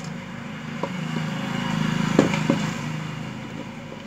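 A passing motor vehicle's low engine hum swells and fades. Over it come a few sharp clicks, the loudest two just past the middle, from a screwdriver prying at a steam iron's plastic housing.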